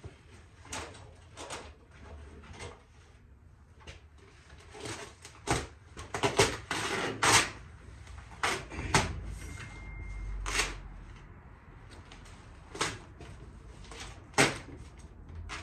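Sheet of satin black vinyl wrap film being handled and stretched by hand over a trunk lid, crackling and rustling in irregular bursts, loudest about halfway through.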